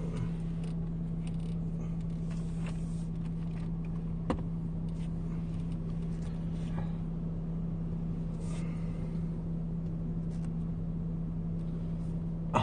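Steady low hum of a car's engine idling, heard inside the cabin, with a few faint clicks, the sharpest about four seconds in.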